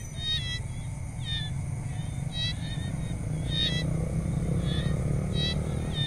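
Tropical jungle ambience: short chirping animal calls repeat about once a second over a steady insect drone, with a continuous low rumble underneath.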